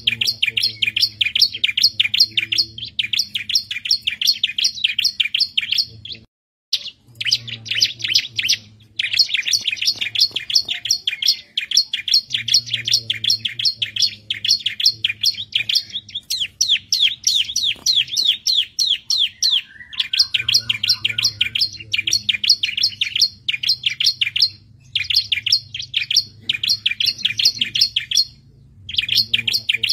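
Bar-winged prinia (ciblek) singing: long runs of fast, high, repeated chirping notes, about eight a second, broken by short pauses, over a faint low hum.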